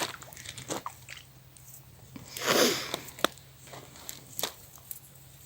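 Close handling of a landing net with a small perch in it: scattered clicks and crackles of the net mesh, with one louder rustling swish about two and a half seconds in.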